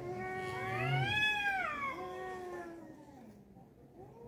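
Tomcat yowling at a rival tomcat in a standoff: one long drawn-out yowl that rises in pitch, then falls and dies away about three seconds in.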